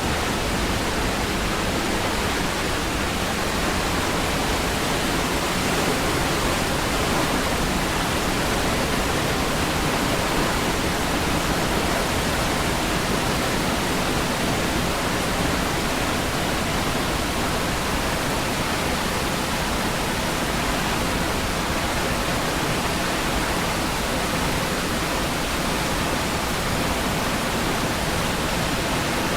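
Niagara Falls' heavy falling water making a steady, unbroken rush.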